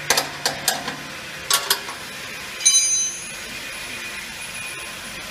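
Spanner clicking and clinking against a bolt and galvanised steel sheet-metal, about seven sharp knocks in the first two seconds, then a short ringing metal clang near the middle.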